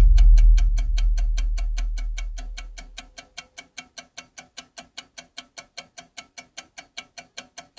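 Fast, even clock ticking, about four or five ticks a second. Over the first three seconds a deep low rumble fades away under it.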